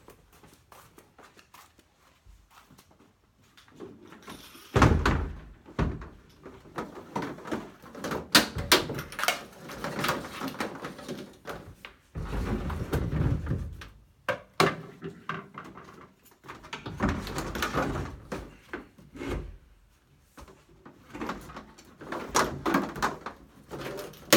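A plastic 50-gallon water tank being loaded into an empty cargo van: irregular thuds, knocks and scraping as it is set down and shifted across the van floor, echoing in the hollow van body. The knocking starts about four seconds in, with the heaviest thumps about five seconds in and again midway.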